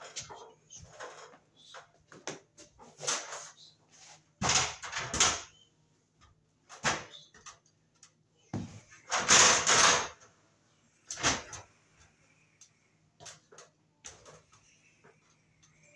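Handling noise from an aluminium stepladder being shifted into place and climbed: a string of irregular knocks and scraping rustles. The loudest come about four and a half seconds and nine seconds in.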